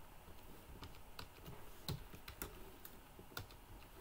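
Faint typing on a computer keyboard: irregular key clicks at an uneven pace.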